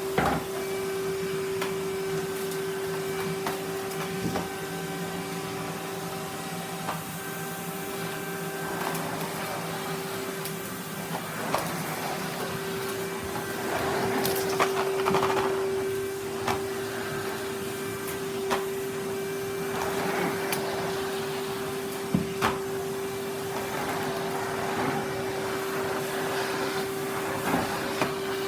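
Vacuum cleaner running with a steady motor hum, with louder rushing spells as it sucks up dirt and sharp knocks now and then as the nozzle or hose strikes hard surfaces.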